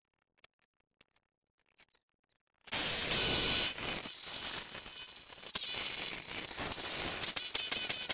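A few faint clicks of parts being handled on a small engine. About two and a half seconds in, a loud static-like rushing noise starts suddenly and carries on, dipping a little after a second or so.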